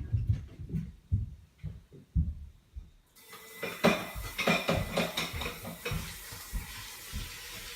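A few dull low thumps, then from about three seconds in, dishes and cutlery clinking and clattering in a kitchen.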